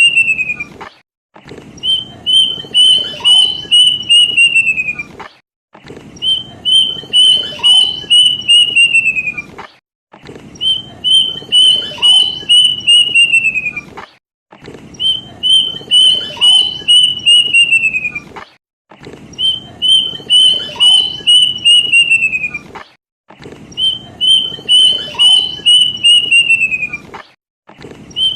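Kedasih (plaintive cuckoo) song played as a looped lure recording. Each phrase is a run of about eight clear whistled notes, the last few sliding down in pitch. The phrase repeats about every four seconds, seven times over.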